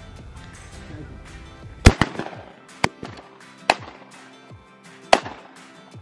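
A volley of shotgun shots at ducks flying overhead: five sharp blasts over about three seconds, the loudest about two seconds in. Background music plays underneath.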